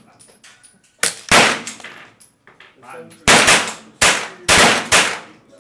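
Five shots from a Browning Buck Mark .22 pistol, each with a short echoing tail: two close together about a second in, then after a pause three more about half a second apart.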